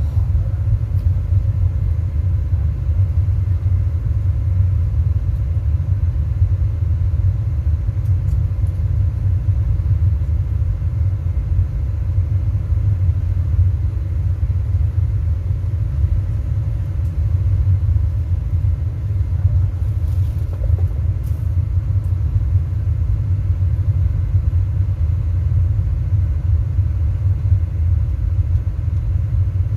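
Large sound-system subwoofers putting out a steady, deep bass rumble, a continuous low test sound while the system is being tuned.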